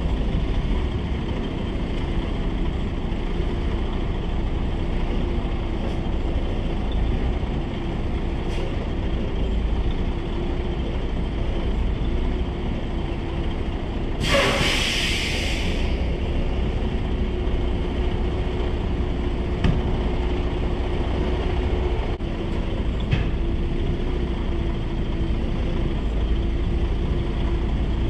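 Semi-truck's diesel engine running steadily while backing a 53-foot trailer, then a loud hiss of air for about a second and a half about halfway through: the air brakes being set as the rig stops in its spot.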